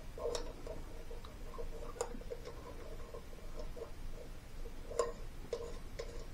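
Small screws being started by hand into an aluminum timing cover: faint, fast light metal ticking, with three sharper clicks about half a second, two seconds and five seconds in.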